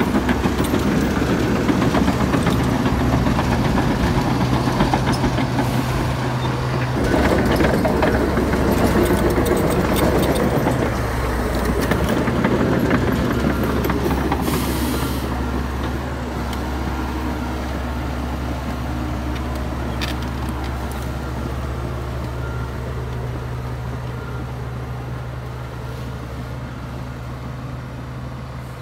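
Komatsu D61EX crawler bulldozer working, its diesel engine running steadily under the clank and grind of its tracks and blade pushing soil. The clatter is heaviest in the first half, eases off after that, and the engine grows fainter toward the end.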